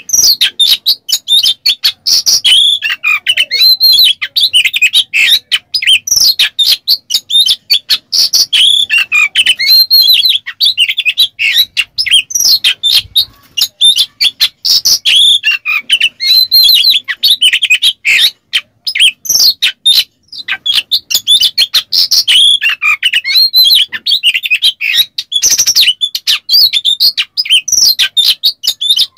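Oriental magpie-robin (kacer) singing loudly and almost without pause: a fast, varied stream of sharp whistles, chirps and gliding notes, broken only by a couple of brief gaps.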